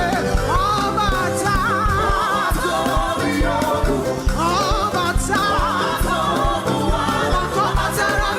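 Live gospel praise music: a band with a steady beat and voices singing over it.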